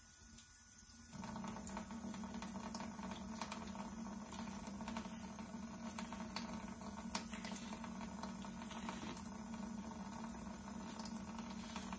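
Soft wet patter and faint scattered clicks of hands pulling the membrane off raw pork chitterlings, over a steady low hum that starts about a second in.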